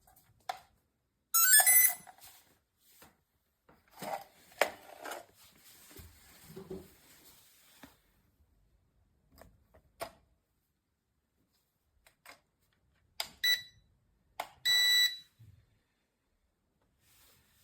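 Electronic beeps: a short rising beep, then after a long gap two more beeps close together, the second one longer. Light clicks and handling rustles sound between them.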